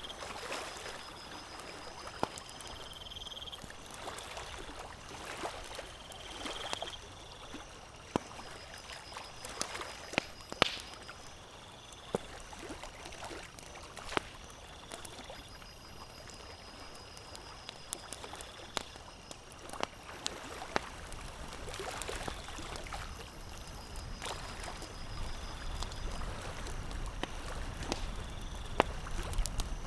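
Campfire crackling with sharp, irregular pops over the steady lapping of lake water, the water's low wash swelling near the end. A faint high chirping call repeats every few seconds.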